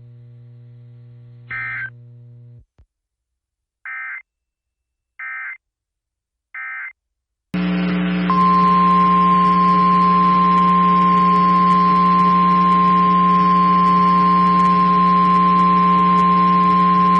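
Emergency Alert System signalling from a NOAA Weather Radio broadcast. First come short bursts of warbling digital SAME data tones: one, then three in a row about a second apart. Then a loud buzzing hum with static, over which the steady single-pitch weather radio alert tone sounds for about nine seconds.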